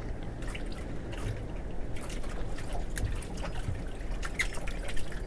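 Sea water lapping and trickling against the hull of a small fishing boat, with scattered small splashes.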